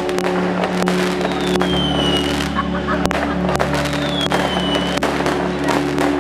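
Fireworks going off in a rapid series of sharp bangs and crackles, with two whistles falling in pitch, over steady droning tones from background music.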